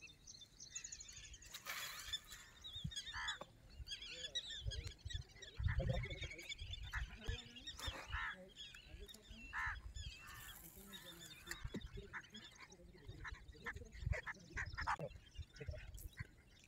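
Many birds calling over one another in short, bending calls, likely waterbirds such as geese or ducks, with low rumbles and thumps loudest about five to seven seconds in.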